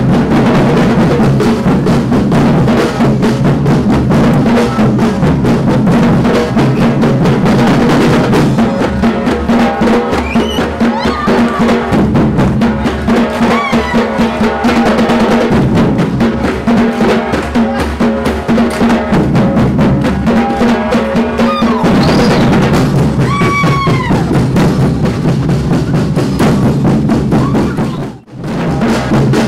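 Samba percussion band playing a steady, loud groove on surdo bass drums struck with soft mallets, with other drums and a few shouted calls over it. The drumming breaks off for a moment near the end.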